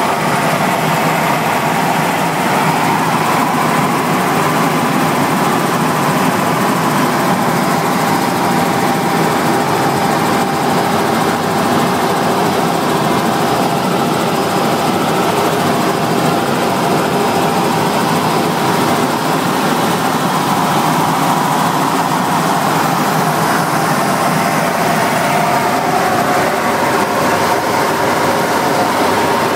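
Robinson R66 Turbine helicopter in flight, heard from inside the cabin: its Rolls-Royce RR300 turboshaft engine and rotors make a loud, steady drone with a faint steady whine.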